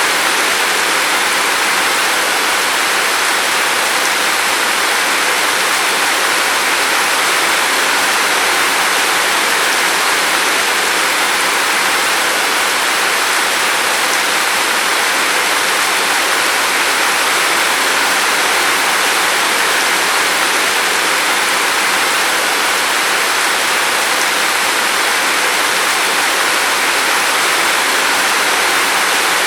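Steady, even rain falling, a constant hiss without breaks.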